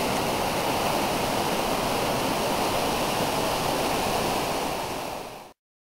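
Iguazú Falls' water pouring down close by: a steady, heavy rush of falling water. It dips slightly and then cuts off suddenly near the end.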